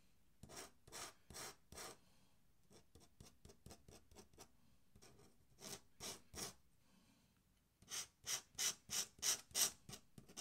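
Faint swishes of an ink brush stroking across paper: a few short, separate strokes, then from about eight seconds in a quicker run of about three strokes a second as short parallel lines are laid down.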